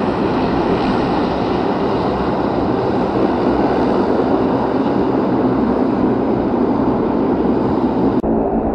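De Havilland Dash 7's four Pratt & Whitney PT6A-50 turboprops running steadily at taxi power, a continuous engine noise with a faint high whine. About 8 seconds in, the sound cuts abruptly to a duller, steadier engine hum.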